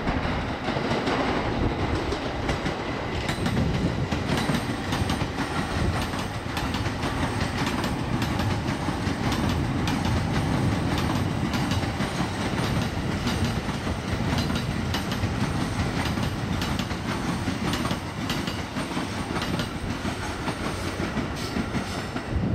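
An electric commuter train running past on the tracks: a steady rumble, with the wheels clattering over the track in many quick clicks.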